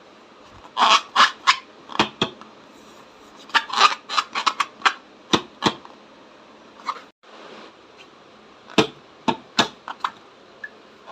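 Slime being squeezed and worked by hand, making sharp crackling clicks and pops. They come in three clusters: about a second in, through the middle, and near the end.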